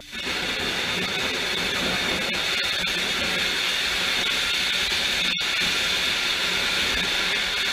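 Hybrid rocket engine burning paraffin wax fuel with nitrous oxide oxidizer, firing on a static test stand: a steady, loud hissing roar that starts suddenly at ignition, with a momentary break about five seconds in.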